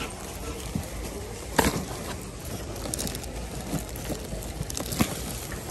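Goods being handled while unpacking: a sharp knock about a second and a half in and another near the end, with softer handling noises over a steady low background hum.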